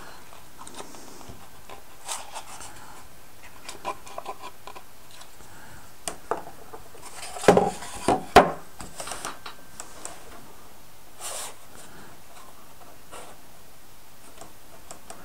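Light wooden model-kit parts being handled and fitted together: scattered clicks and taps, with a cluster of louder knocks and scraping about seven and a half to eight and a half seconds in as the cabin roof is set on.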